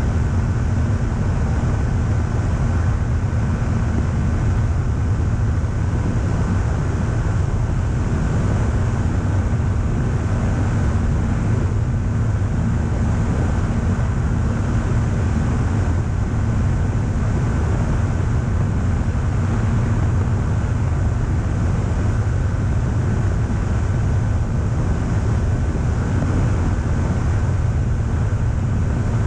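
Pipistrel Sinus motorglider's engine and propeller running steadily in flight, heard from a camera mounted on the wing, with a steady hum and a constant rush of wind noise on the microphone.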